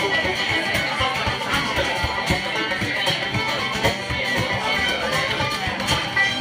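A folk tune played together on tin whistle, fiddles, banjo and strummed acoustic guitar, with a steady beat.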